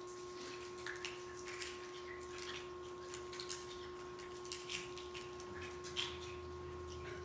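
Faint plastic crackling and small clicks as a prefilled communion cup's peel-off seal is opened and handled, scattered irregularly over a steady faint hum.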